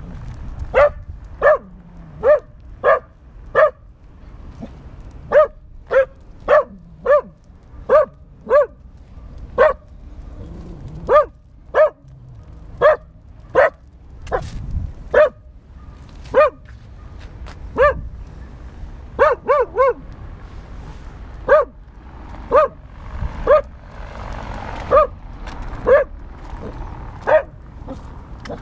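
A dog barking over and over, single short barks about one a second with brief pauses, including a quick run of three about 19 seconds in.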